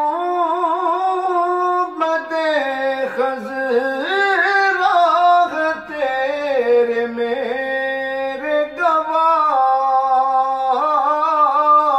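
A solo man's voice singing a naat in long, drawn-out, ornamented notes, with brief breaks between phrases.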